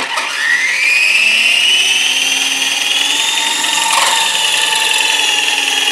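Large 66-inch counter-rotating twin-rotor RC helicopter's motor and gear drive spooling up: a loud whine that rises in pitch over the first few seconds, then holds steady at speed.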